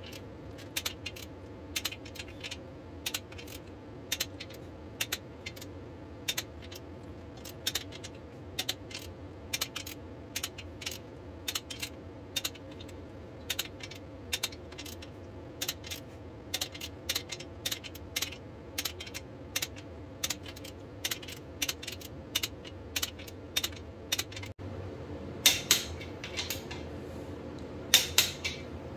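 Ratchet head of a torque wrench clicking as it tightens the main-cap stud nuts in stages. The sharp clicks come irregularly, one to three a second, with a few louder clicks near the end.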